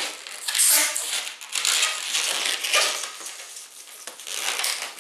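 Inflated latex modelling balloon squeaking and rubbing in the hands as it is twisted into sections.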